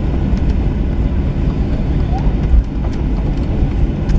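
Cabin noise inside a Boeing 737-800 taxiing after landing: a steady low rumble from the engines and the rolling wheels, with scattered light clicks and rattles.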